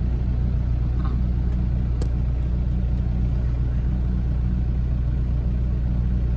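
A low, steady engine drone, with a faint click about two seconds in.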